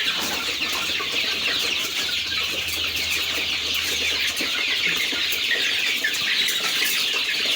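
A large flock of about 300 one-month-old Sasso chicks peeping constantly, many short high chirps overlapping into a dense, steady chatter.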